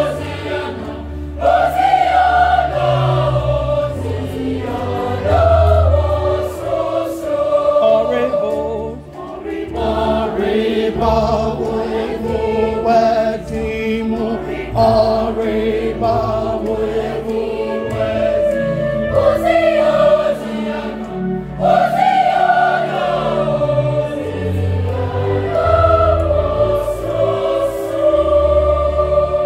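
Junior church choir singing in parts, with long held notes over low bass notes.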